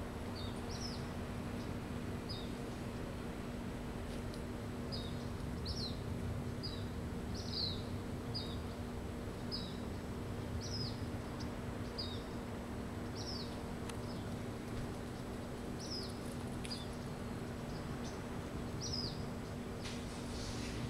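A small bird calling one short, high chirp over and over, about once a second, over a steady low hum and background noise.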